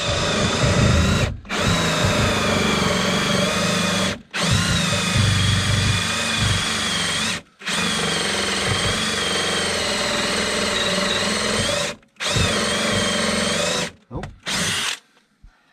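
Electric drill turning a hole saw through a wooden stud. It runs in stretches of a few seconds with short pauses between, its pitch wavering slightly under load, then gives two short bursts before stopping near the end.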